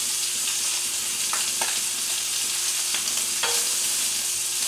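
Beef short ribs sizzling in butter in a hot cast iron skillet, a steady high hiss. A few sharp clicks of metal tongs sound as the ribs are gripped and lifted from the pan.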